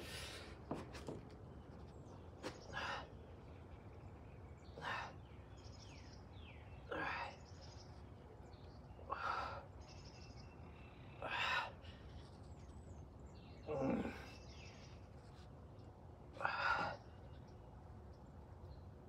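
A man breathing out hard in short puffs, about one every two seconds, in time with his reps on gymnastic rings. Birds chirp faintly in the background.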